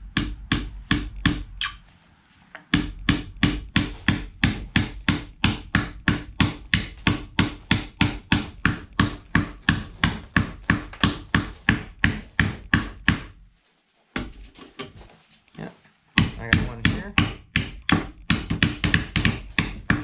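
Steel claw hammers driving nails into the wooden sides of a beehive box: a steady run of sharp strikes about three a second, breaking off briefly twice.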